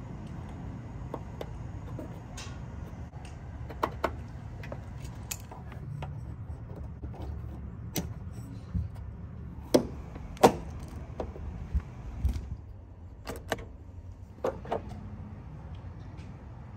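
Scattered sharp clicks and taps of plastic trim clips being handled and snapped into place around a car's fuel filler door, over a steady low rumble.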